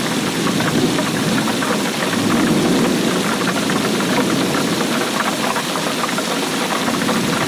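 Steady heavy rain, a dense patter of drops hitting a surface with a low rumble under it.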